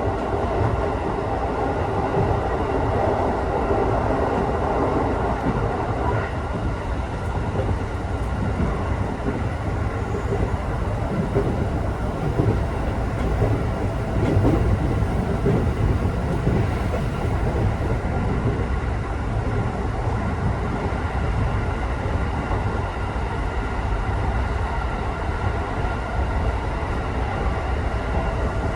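Electric local train running steadily between stations, heard inside the passenger car: a continuous rumble of wheels on the rails with a faint steady hum.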